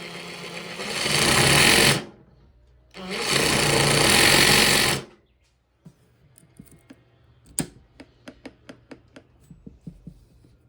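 Makita XRJ04 cordless reciprocating saw running with no load: it speeds up under the trigger and stops about two seconds in, then runs again at full speed for about two seconds and stops. A string of light, sharp clicks follows.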